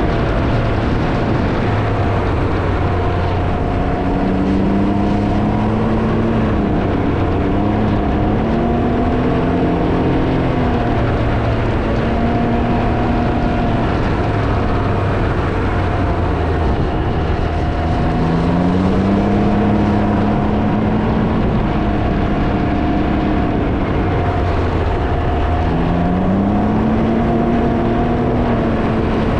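Can-Am Ryker three-wheeler's engine running on the road, its pitch rising several times as it accelerates and then holding steady, under heavy wind noise on the microphone.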